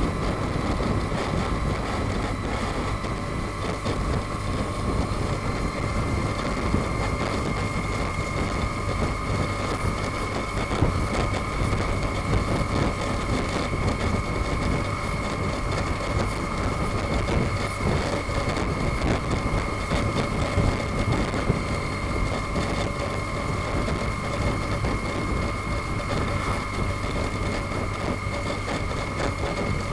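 Steady running noise of a moving vehicle: engine, tyres and wind holding an even level, with a steady high whine over it.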